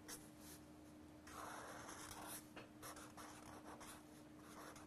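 Faint scratching of a pen drawing lines on paper: one longer stroke about a second in, then a run of short, quick strokes.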